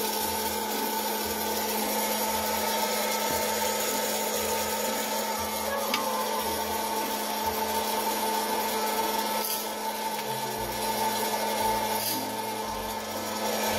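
Presto PopLite hot-air popcorn popper running: its blower fan gives a steady hum and rush of air, with the kernels rattling as they swirl in the chamber before popping starts.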